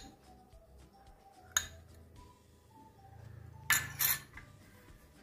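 A metal spoon clinking against glass while scraping paste from a glass jar into a glass bowl: a sharp clink at the start, another about a second and a half in, and a quick double clink near the end. Quiet background music runs underneath.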